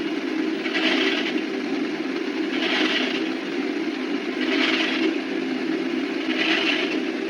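Walking pad under-desk treadmill running: a steady motor and belt hum with a scraping swish that comes round about every two seconds.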